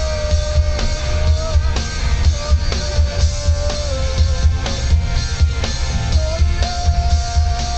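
Live rock band playing: a drum kit beat under electric guitar and bass, with long held notes drawn out over the music that bend at their ends.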